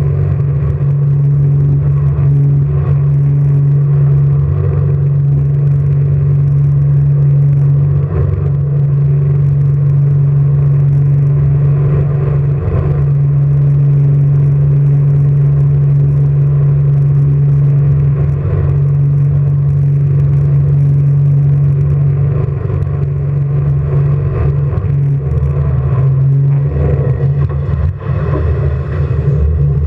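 Jet boat engine running at a steady, unchanging pitch under a rush of noise, its note breaking up near the end.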